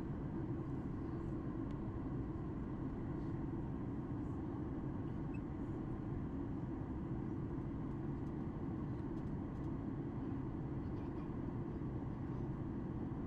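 Steady low cabin roar of a Boeing 737 MAX 8 in flight on descent: airflow over the fuselage and the CFM LEAP-1B engines, heard from inside the cabin.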